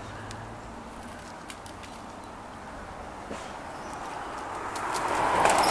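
A car passing on the street, its tyre noise swelling gradually over the last second or two, with scattered light clicks and taps.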